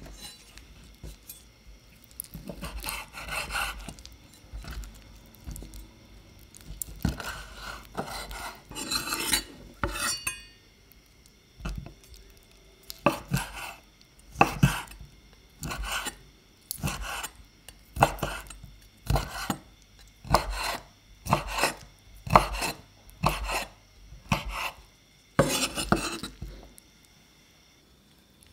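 Hands pulling apart and handling cooked octopus on a wooden cutting board, with irregular rubbing and scraping sounds. After about twelve seconds, a kitchen knife chops the octopus into pieces on the wooden board in steady, sharp strokes about once a second.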